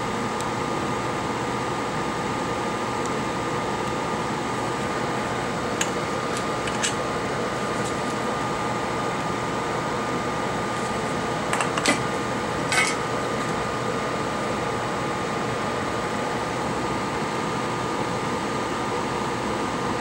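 Steady whirr of a small fan on a soldering bench, a constant hiss with a steady hum tone, with a few light clicks of metal tools on the phone's circuit board, most of them around the middle.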